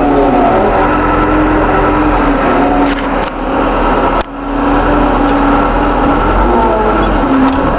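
Cat IT914 wheel loader's diesel engine running loud and steady, its pitch drifting up and down. The level dips briefly about three seconds in and again just after four seconds, with a short knock at the second dip.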